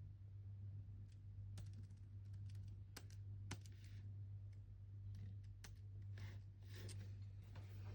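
Computer keyboard typing: faint, irregular keystroke clicks in uneven bursts, over a steady low hum.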